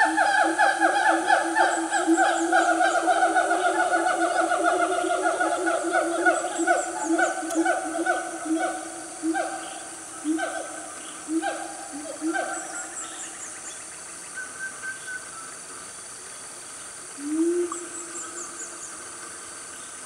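Siamangs calling: a fast run of loud hooting barks that slows into spaced single calls and gets quieter after about ten seconds, with one more call near the end.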